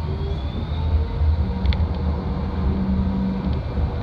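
Flexity tram running along its track, heard from the driver's cab: a steady low rumble with a faint motor whine gliding slowly up in pitch.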